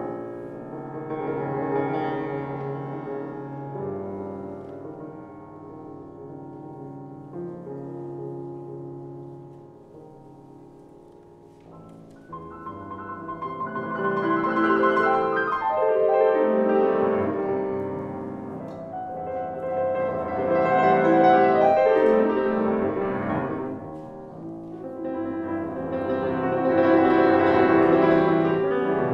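Solo classical piano played on a grand piano: a soft passage that turns loud about twelve seconds in, then rises and falls in three swells.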